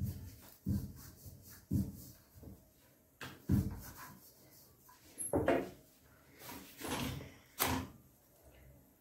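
A series of sudden knocks and thuds, roughly one every second or two, like things being handled and set down around a kitchen.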